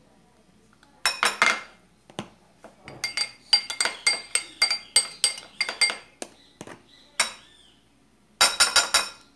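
A metal spoon and a drinking glass clinking against a glass mixing bowl while cornstarch is spooned into the batter: a few clinks about a second in, a quick run of clinks, about three a second, for some three seconds, then a tight cluster near the end, each with a short glassy ring.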